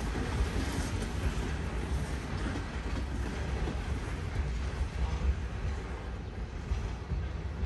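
Loaded sand and gravel hopper cars of a freight train rolling past on the rails, a steady rumble of wheels on track that thins out over the last couple of seconds as the end of the train moves away.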